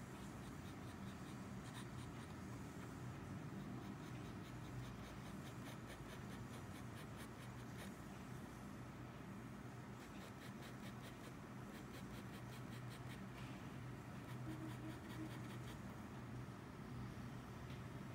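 Extra-fine steel nib of a Lamy Safari fountain pen scratching on sketchbook paper in several runs of quick, repeated hatching strokes. A faint steady low hum sits behind it.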